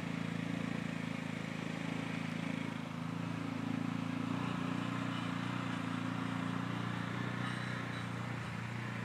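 ATV (quad) engine running steadily at an even pitch, with no revving.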